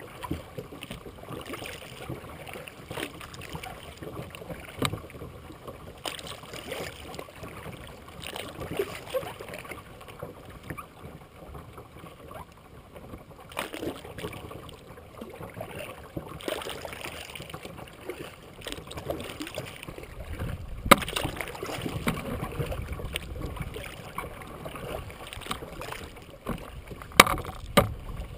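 Kayak paddle strokes dipping and splashing in the water every second or two, with a few sharp knocks, the loudest about two-thirds in and near the end.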